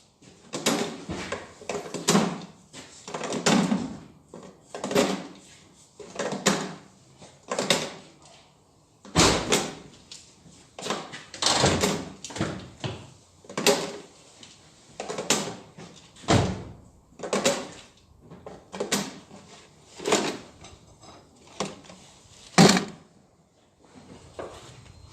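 Hydraulic lash adjusters from a G4NA cylinder head dropped one at a time into a plastic canister, a knock with a short rattle about every second and a half, to be stored under oil so they don't dry out.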